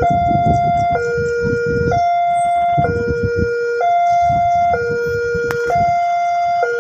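Railway level-crossing warning alarm sounding its electronic two-tone signal, a higher and a lower tone swapping about once a second: the crossing is warning that a train is approaching. A low rumbling noise runs underneath.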